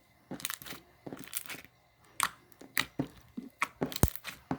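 Clear slime with fishbowl and foam beads being squished and stretched by hand, giving irregular crunchy crackles and pops, with one sharper click about four seconds in.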